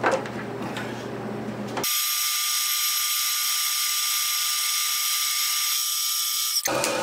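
Milling machine running at slow spindle speed, turning a coaxial indicator: a low hum, then about two seconds in a steady, thin, high-pitched whine of several even tones that cuts off abruptly near the end.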